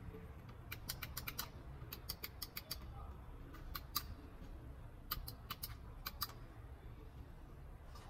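Plastic buttons of a master power window switch clicking as a thumb presses them, in quick runs of several sharp clicks with short gaps between the runs.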